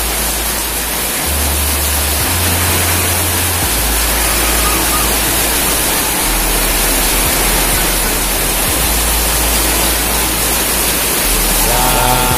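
Rain falling steadily on wet concrete and puddles, an even hiss. A voice starts near the end.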